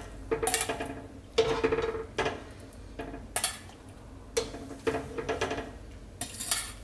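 Wire mesh skimmer and stainless steel bowl clinking against each other and the pan as boiled meat is scooped out of the water: about seven separate metallic clinks, each with a short ring.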